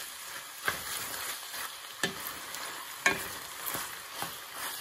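Wooden spoon stirring ground beef and vegetables in a steel frying pan, the food sizzling steadily, with the spoon scraping and knocking against the pan about five times.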